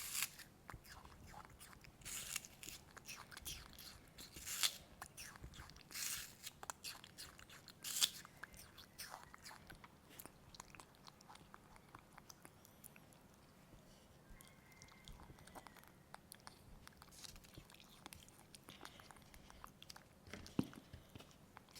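A monkey biting and chewing food with crunching bites, a few loud crunches in the first eight seconds, then quieter chewing clicks.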